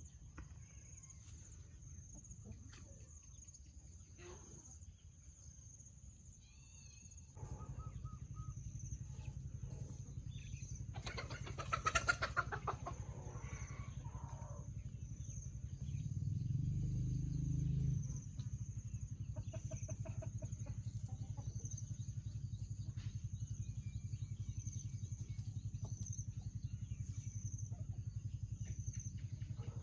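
Laying hens clucking, with a louder call about twelve seconds in. A steady high-pitched whine runs throughout, and a low rumble comes in after several seconds.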